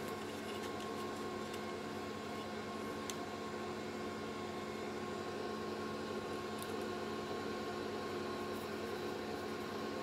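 Steady electrical or fan-like hum with hiss, holding several fixed tones at an even level, with a few faint light ticks about three seconds in and again near the middle.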